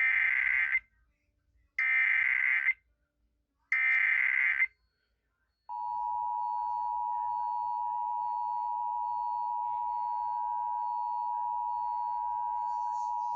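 Emergency Alert System SAME header: three bursts of digital data tones, each just under a second long, about a second apart. About a second and a half later the steady two-tone EAS attention signal starts and holds. Together they mark the start of a new emergency alert.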